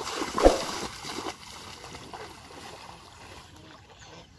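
Hard splashing in shallow water as a thrown fishing spear (teta) strikes and a wader lunges through the water, with one sharp, loudest splash about half a second in. It dies down after about a second to gentle sloshing and lapping.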